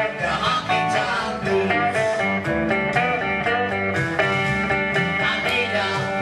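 Live band playing electric guitars and bass guitar.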